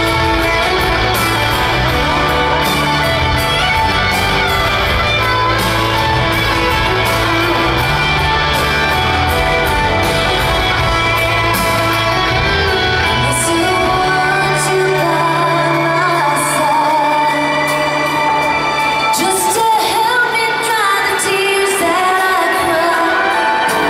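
Live band playing a pop-rock song on electric and acoustic guitars, keyboards, hand drums and drum kit, with singing over it. About halfway through, the bass settles onto a long held note.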